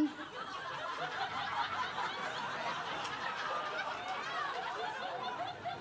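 Audience laughing together, a steady mass of many people's chuckles and laughs.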